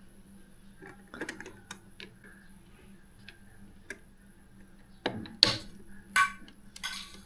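Small scattered clicks and taps of hardware being handled, then several louder rustling scrapes in the last two seconds.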